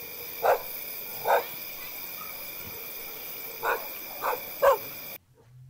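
A dog barking five times, short single barks, over a steady high hiss of night ambience with faint high steady tones. The ambience cuts off suddenly about five seconds in.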